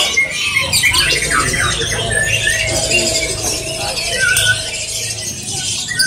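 Many caged songbirds chirping, trilling and whistling at once, over a steady low hum.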